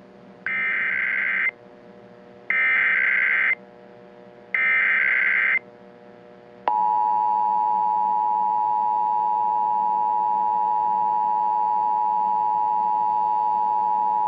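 Emergency Alert System tones for a Required Monthly Test. First come three one-second bursts of SAME digital header data, a second apart. About six and a half seconds in, the two-tone attention signal (853 and 960 Hz together) starts and holds steady.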